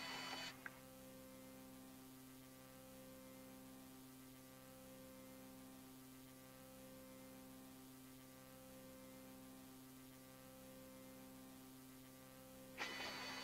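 Faint, steady electrical hum made of several low tones, one of which pulses slowly on and off. A short burst of whirring mechanical noise stops about half a second in, and another starts shortly before the end.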